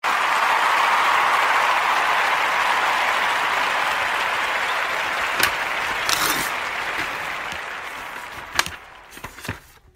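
A crowd applauding, a dense even clapping that dies away over the last few seconds, with a few last single claps standing out near the end.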